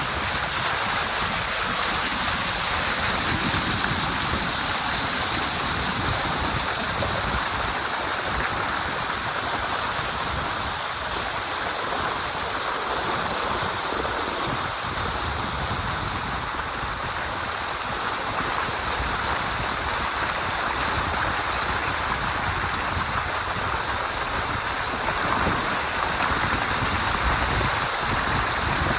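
Steady rushing of wind and water in a hurricane storm, an unbroken noisy hiss that swells and eases slightly without letup.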